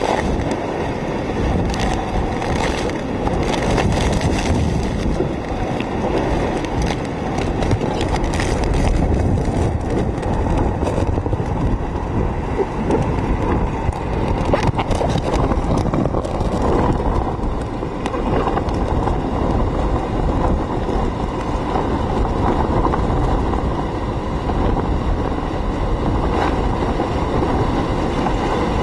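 Hurricane-force wind and driving rain: a loud, steady heavy rush of wind buffeting the microphone, with scattered sharp ticks of rain and spray striking.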